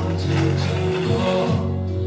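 Background music, a song with a steady accompaniment.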